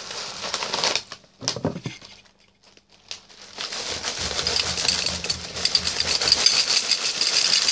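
Plastic cereal bag crinkling, then Nesquik chocolate cereal balls poured from the bag into a bowl: a dense, continuous rattle of many small pieces hitting the bowl, starting about halfway through.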